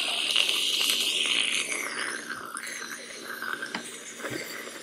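A glass of cola over ice with a straw giving a steady, crackling liquid hiss that fades and drops lower after about two seconds as the glass empties.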